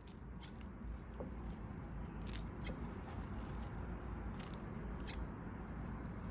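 Kitchen scissors snipping: about seven short, sharp metallic snips at irregular intervals, over a steady low background rumble.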